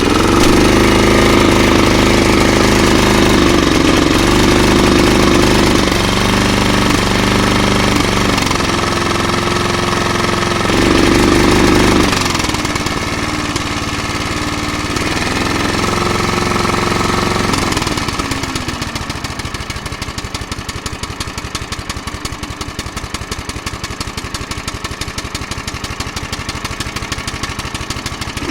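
Vintage Hayter Hayterette lawnmower's Briggs & Stratton 3.5 hp petrol engine running just after starting, its speed rising and falling several times. About two-thirds of the way through it drops to lower, steadier running.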